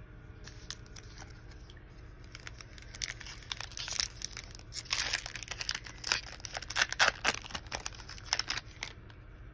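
Foil wrapper of a trading-card pack being torn open and crinkled by hand: a dense run of sharp crackles, loudest in the middle, that stops shortly before the end.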